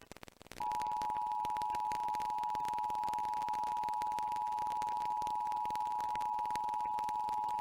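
Emergency Alert System attention signal: the steady two-tone alarm (853 and 960 Hz sounded together) starting about half a second in and holding unchanged. It follows the digital header bursts and introduces a spoken tornado warning.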